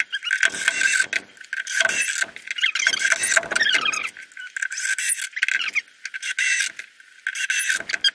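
Cordless drill driving screws into wooden boards: several short runs of the motor with brief pauses between.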